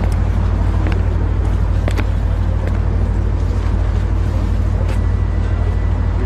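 A loud, steady low rumble with an even hiss over it, like a car's engine and tyres heard from inside the cabin, with a few faint clicks.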